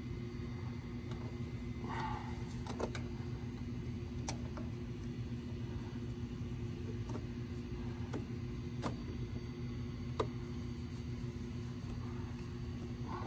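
Pliers gripping a spin-on engine oil filter, giving a scattered series of sharp metallic clicks as the jaws are set and worked on the filter, over a steady low hum.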